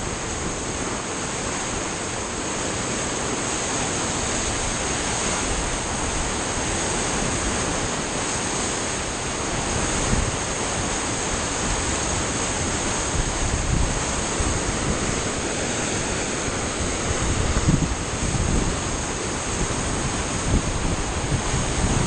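Flood-swollen river rushing, its muddy water churning in a loud, steady rush. Wind buffets the microphone in low gusts, more often in the second half.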